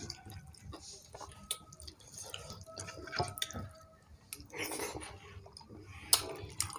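Close, wet eating sounds of people eating rice khichuri with their fingers: soft squelching of food being mixed by hand, lip smacks and chewing, with scattered sharp wet clicks.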